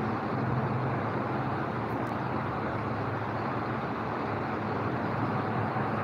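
Steady background noise: an even hiss and rumble with a low hum underneath, unchanging throughout and with no distinct events.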